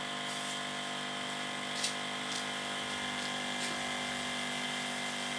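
Small battery-powered rice-sprayer pump running steadily, giving an even hum of several fixed tones, with a short tick about two seconds in.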